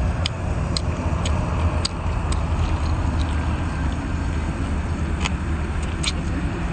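A person chewing and sucking on boiled octopus tentacle, with scattered short wet mouth clicks. A steady low rumble runs underneath.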